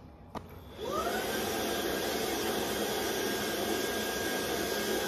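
Proscenic P11 Smart cordless stick vacuum switched on with a click, its motor spinning up with a short rising whine about a second in and then running steadily. It is drawing suction through its pet-grooming brush attachment.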